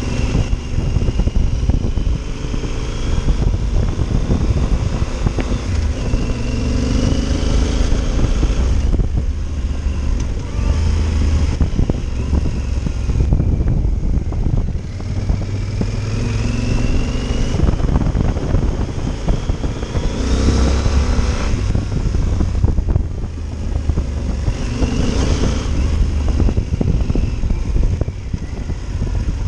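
Yamaha Super Ténéré's parallel-twin engine under way on a dirt road, over a steady low rumble. Its pitch climbs and drops about five times as the bike accelerates and shifts gear.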